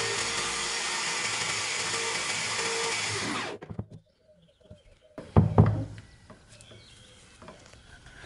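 Electric drill with a sanding pad in its chuck, running steadily, then switched off about three and a half seconds in, spinning down with a falling whine. Then a loud knock and a few small clicks as the drill and parts are handled.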